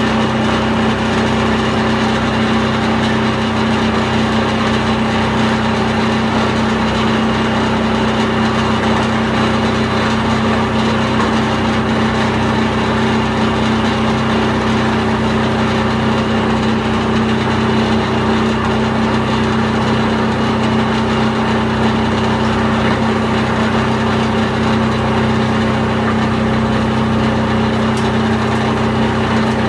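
Plastic film agglomerator for PP/PE film running steadily as film is fed in: a constant strong hum with steady tones over an even rushing noise.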